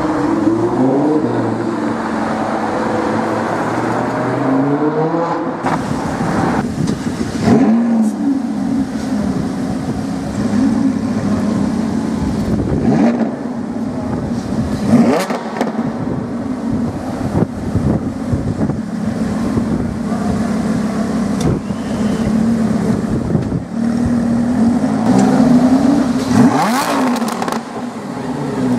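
Lamborghini Huracán V10 engine revving and accelerating, its pitch rising and falling again and again, with a few sharp cracks.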